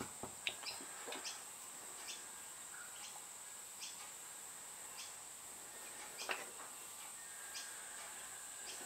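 A steady high-pitched chorus of insects, with faint scattered clicks and taps from small hand work: gluing and packing sawdust into the lead holes of a small wooden lure body.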